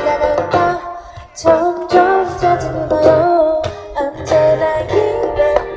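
Live acoustic band music: plucked and strummed guitar with a wavering lead melody over a steady bass line.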